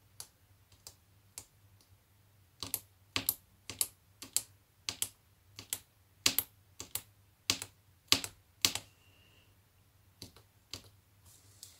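Irregular sharp little clicks, roughly two a second, as a safety pin is pushed hole by hole through layered paper into a soft pad beneath: hand paper pricking.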